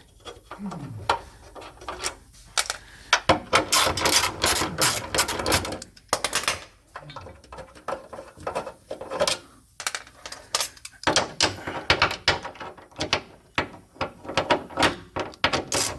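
Hand ratchet clicking in quick runs with pauses between, undoing the bolts of a car's underbody plate, with knocks of metal tools.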